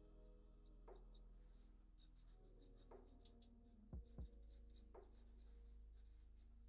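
Faint scratching of a black felt-tip marker on paper in many short, quick strokes as fur is sketched. Two soft knocks come about four seconds in, over a steady low hum.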